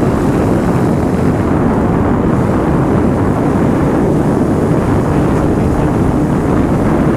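Loud, steady wind noise buffeting the microphone of a motorcycle rider at speed on a Honda CBR, a low rushing roar with no distinct engine note standing out.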